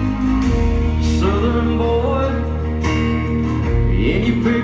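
Live country band music: a strummed acoustic guitar over bass and drums.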